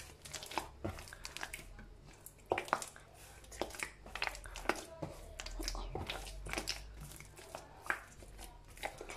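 Hands kneading soft pizza dough in a bowl as butter is worked in: irregular soft squishes, slaps and small clicks.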